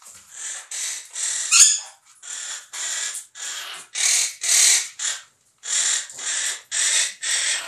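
Parrots squawking: a rapid run of about fourteen harsh calls, roughly two a second.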